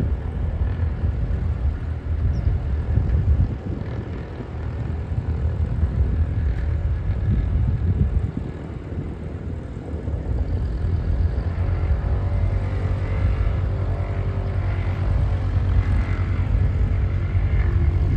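Light aircraft's piston engine and propeller running at idle close by: a steady low rumble with a faint hum, its level swelling and easing.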